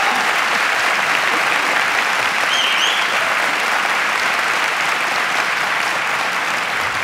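A large audience of several hundred applauding steadily, with one brief high whistle about two and a half seconds in.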